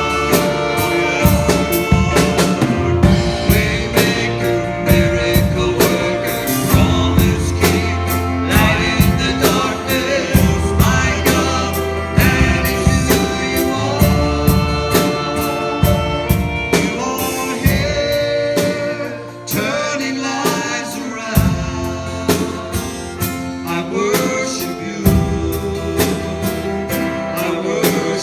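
Contemporary worship band playing with singing and a steady drum beat.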